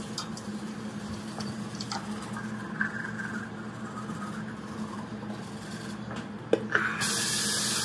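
Toothbrush scrubbing teeth. Near the end a bathroom sink tap knocks and is turned on, and water runs from it in a steady hiss.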